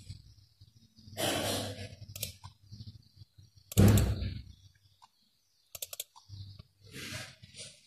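Computer mouse being clicked and its scroll wheel ticking in short runs, with a few short bursts of noise; the loudest comes about halfway through.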